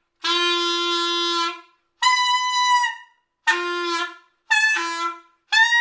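Clarinet honked loudly five times in a row, beginner-style with no concern for tone: three blasts hold a steady low note and two jump up to a higher squawk, the last one bending up and then down in pitch.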